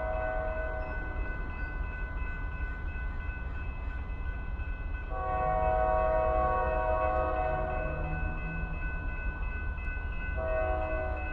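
Train horn sounding in blasts: one ending about a second in, a long blast of nearly four seconds starting about five seconds in, and another starting near the end, over a steady low rumble.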